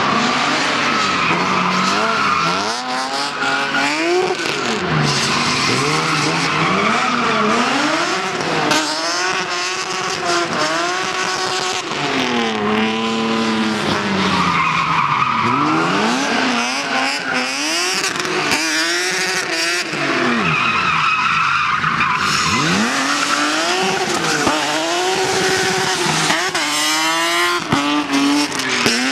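BMW 3 Series drift car's engine revving up and down over and over as it slides through the corners, with its rear tyres squealing in the skid.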